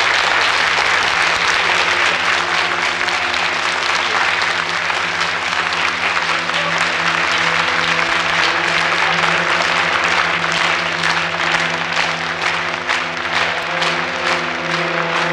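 An audience in a hall applauding steadily. Sustained low musical chords come in under the clapping and grow louder.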